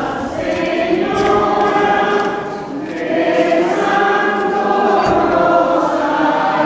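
A congregation of many voices singing a hymn together in two phrases, with a brief dip for breath about three seconds in.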